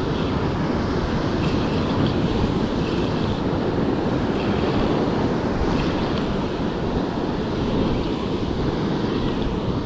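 Ocean surf breaking and washing over coastal rocks, a steady heavy rush, with wind buffeting the microphone.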